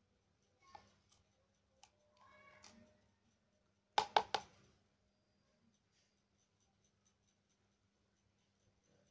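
A lovebird chick being spoon-fed gives a short begging call about two seconds in, followed about four seconds in by three quick, sharp clicks, the loudest sounds here.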